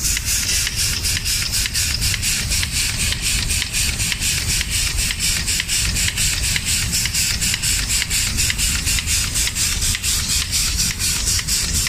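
Automatic spray-painting machine for cabinet doors running: a steady hiss over a low rumble, with even ticking at about five a second.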